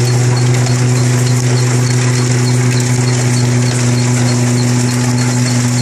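Engine-driven chestnut hulling machine running steadily as it strips chestnuts from their spiny husks: an even engine drone with a light regular tick about four times a second.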